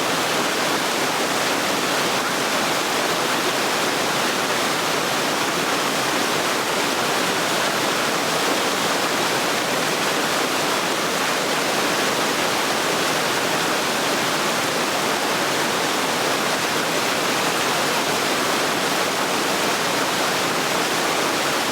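Waterfall: water falling and splashing in a steady, even rush.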